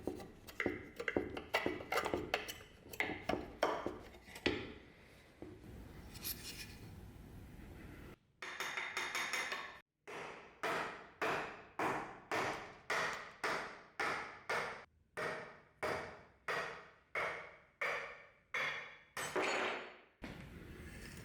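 Hammer striking repeatedly: a run of quick, irregular taps, then from about eight seconds in a steady series of blows, about one and a half a second, each dying away quickly.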